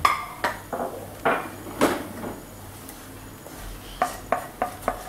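Wooden spatula scraping and knocking against a non-stick frying pan as dry-fried anchovies are scooped out: a run of short scrapes in the first two seconds, then four quick sharp taps near the end.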